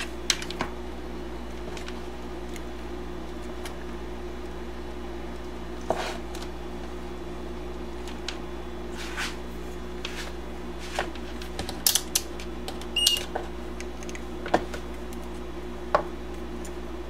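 Scattered small clicks and clatters of alligator clip leads and plastic AA battery holders being handled and clipped together, over a steady low electrical hum. A brief high beep sounds about two-thirds of the way in.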